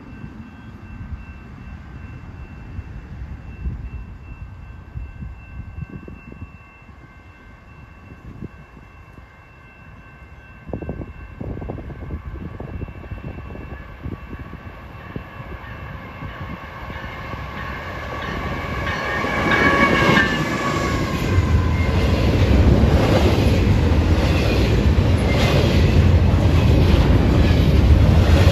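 A CN freight train approaches and passes: a faint steady high tone and low engine rumble grow louder, and the tone drops in pitch as the locomotives go by about two-thirds of the way in. Then double-stack container cars roll past with a loud rumble and a regular clickety-clack of wheels over the rail joints.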